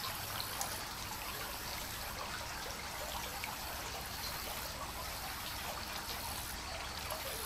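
Shallow creek water trickling steadily.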